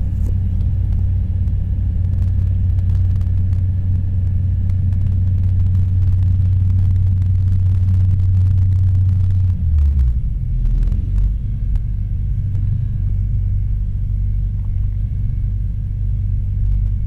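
Rotax 912iS fuel-injected flat-four engine of a Sling 2 light-sport airplane running at low power while taxiing, heard from inside the cockpit as a steady low rumble. About ten seconds in its pitch drops lower as the revs come down.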